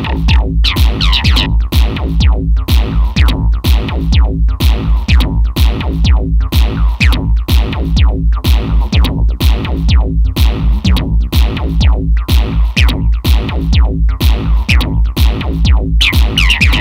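Acid electronic track: a steady drum-machine beat with a heavy low kick and repeating hi-hats under looping synthesizer lines.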